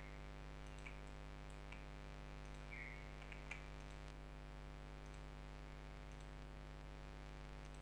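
A few scattered computer mouse clicks, sharp and short, over a steady low electrical hum.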